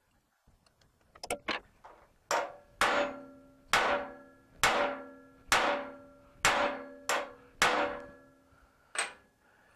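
Hammer striking a steel rivet setting tool held on a rivet over a railroad-rail anvil, cold-setting a brad rivet head. Two light taps, then nine heavy blows about a second apart, each ringing on with a metallic tone.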